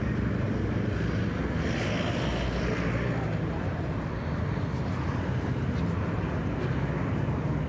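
Street traffic: a steady low rumble of vehicles on the road, with one passing more loudly about two seconds in.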